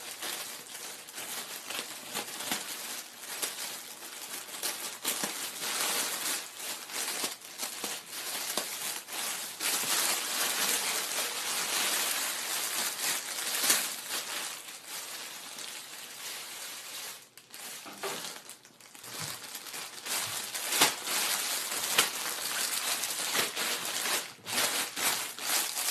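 Shipping bag and inner packaging being opened and handled by hand: continuous crinkling and crumpling with sharp rustles and tearing, easing off briefly about two-thirds of the way through.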